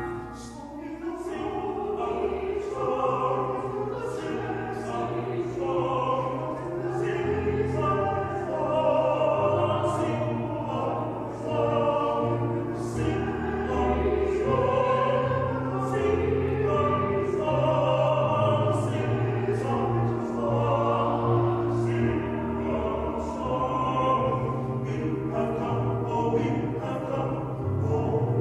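Music: singing in a classical, operatic style with instrumental accompaniment and a bass line underneath.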